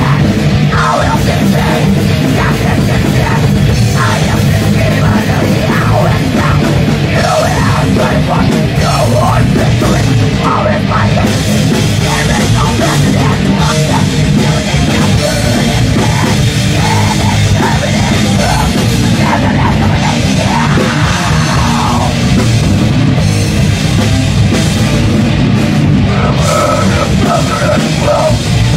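Heavy metal band playing live: electric guitars and bass over a drum kit, loud and unbroken.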